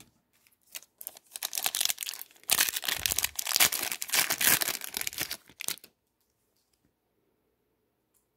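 The wrapper of an Upper Deck Series 2 hockey card pack being torn open and crinkled by hand. It is a dense crackle of tearing and rustling that starts about a second in and stops about six seconds in.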